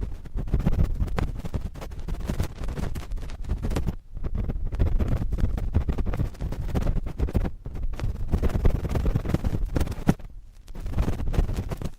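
Cotton swab scratching and rubbing directly on a microphone: a dense, continuous run of close scratchy rustles, heavy in the low end, with short pauses about four seconds in and near the end.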